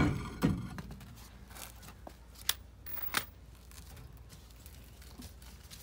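Steel wheel and tyre being pulled off the rear hub studs of a 1949 Chevy DeLuxe: two metal knocks at the start, then sharp clicks about two and a half and three seconds in as the rim scrapes off the studs.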